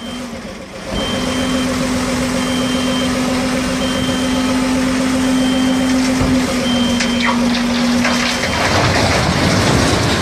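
Iveco tipper truck running with a steady hum as its hydraulics raise the dump body, with a high warning beep sounding about every second and a half. In the last two seconds the load of large stone blocks slides out of the tipped body with a heavy grinding rumble.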